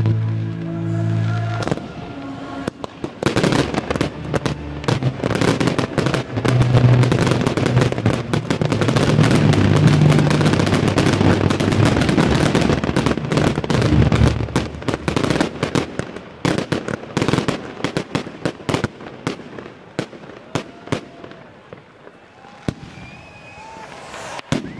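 Fireworks display: rapid bangs and crackling of shells build about three seconds in into a continuous crackle lasting about ten seconds, then thin out to scattered bangs and crackles.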